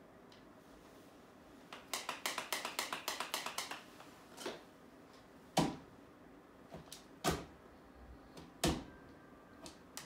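Painting tools handled against a wall: a quick rattling run of clicks for about two seconds, then several single sharp taps spaced a second or more apart.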